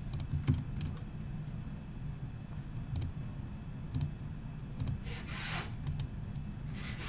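Computer mouse and keyboard clicks: single sharp clicks spaced about a second apart, over a low steady hum, with a brief soft hiss about five seconds in.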